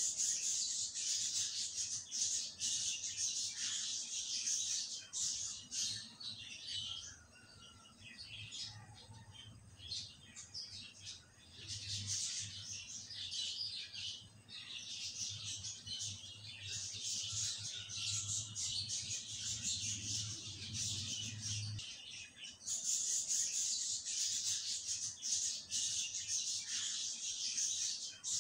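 Many small birds chirping and twittering continuously in rapid overlapping calls, with a low hum underneath through the middle stretch.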